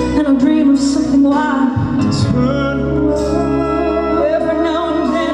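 A woman singing a slow power ballad into a microphone with vibrato, over live band accompaniment, amplified through a PA.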